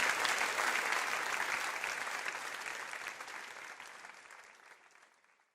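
Applause of many clapping hands, fading out steadily to silence.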